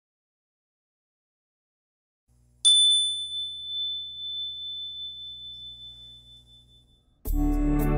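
A single bright chime struck once, ringing a clear high tone that fades away over about four seconds above a faint low hum. Soft instrumental music starts near the end.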